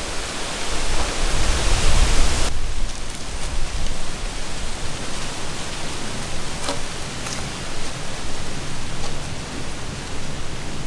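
Steady rushing outdoor noise with a low rumble underneath, brighter for the first couple of seconds and duller after a sudden change about two and a half seconds in, with a few faint clicks.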